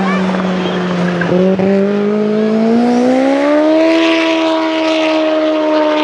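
Race car engine running hard on a hill climb. The steady note breaks off sharply about a second and a half in, then rises in pitch over the next couple of seconds and holds high as the car accelerates out of the bend.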